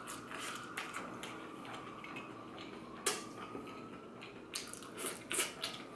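Close-up chewing of crisp fried food: irregular crunches and mouth clicks, with a quick cluster of louder crunches near the end.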